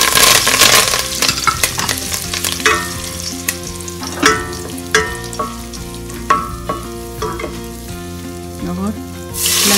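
Curry leaves and cumin seeds sizzling in hot oil in a stainless steel pot while a wooden spatula stirs them. The sizzle is loud at first and dies down, leaving the spatula knocking and scraping against the pot, each knock ringing briefly. A sudden loud rush of sizzling starts near the end.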